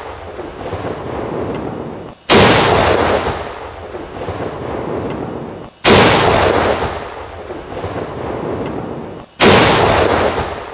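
Tank cannon firing three times, about three and a half seconds apart: each shot a sudden loud boom that fades away slowly over the following seconds.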